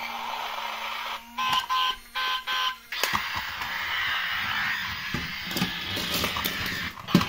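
A battery-powered transforming robot toy car playing its electronic sound effects: a run of rapid on-off beeps, then a noisy electronic effect, with a sharp click near the end.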